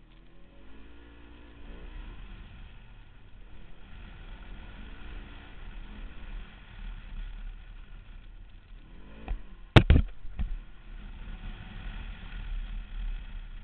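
Side-by-side utility vehicle's engine running under way, its pitch rising and falling as the throttle comes on and off. About ten seconds in, a few loud sharp knocks.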